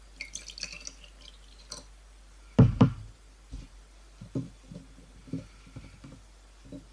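Water poured briefly into a small glass jar in the first second, then two loud knocks about two and a half seconds in. Softer taps and knocks follow as fresh chili peppers are handled and pushed into the jar.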